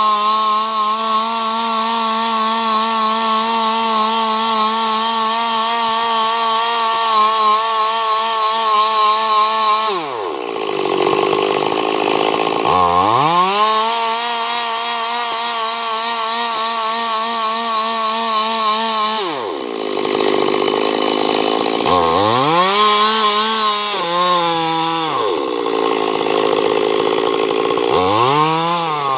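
Small two-stroke chainsaw engine running at high revs with a steady whine. Its engine speed sags and climbs back up several times: about ten seconds in, again near twenty seconds, and twice more near the end.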